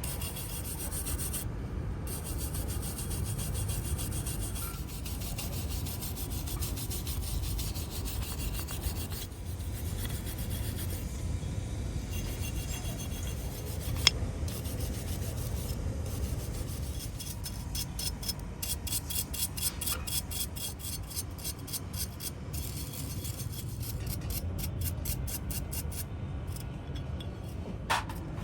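Rapid back-and-forth rubbing strokes, like hand scrubbing or filing, running on and off and getting faster and more even in the second half. There is one sharp click about halfway through.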